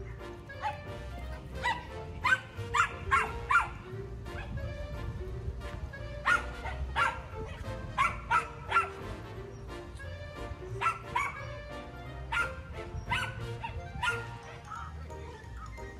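Small dogs barking in short, sharp yips, several in quick succession in clusters every few seconds, over steady background music.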